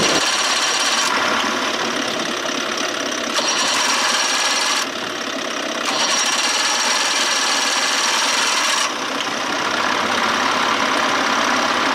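Small outboard motor running steadily. Its sound changes every few seconds, with the upper part dropping briefly about five seconds in and easing again near nine seconds.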